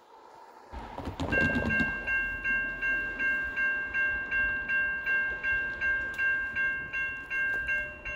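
Railroad grade crossing warning bell starting to ring about a second in, an even, repeated ding at about two to three strokes a second, as the crossing signals activate for an approaching train. A low rumble comes just before the bell starts.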